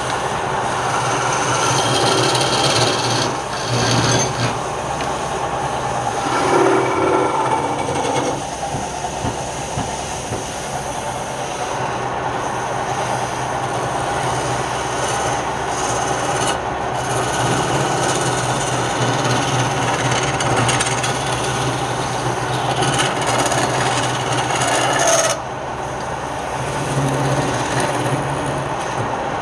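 Wood lathe running with a steady motor hum while a tool scrapes the spinning wood. The scraping drops away suddenly about 25 seconds in and the hum carries on.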